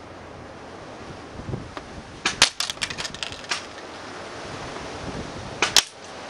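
Airsoft BBs fired from a Tokyo Marui SPAS-12 spring shotgun striking a paper target in a pellet-trap box: sharp clicks and taps in two volleys, a scattered cluster about two to three and a half seconds in and two loud snaps near the end.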